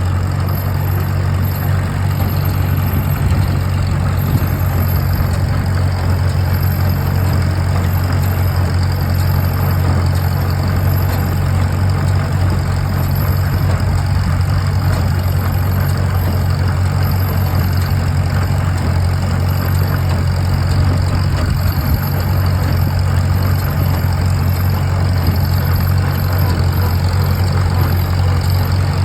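Farmall M tractor's four-cylinder engine running steadily, with the IH 56 twine-tie hay baler it drives working at the same time.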